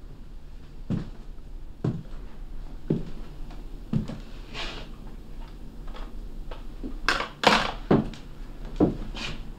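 Slow footsteps on a floor, about one step a second, with a louder scuffing noise about seven seconds in.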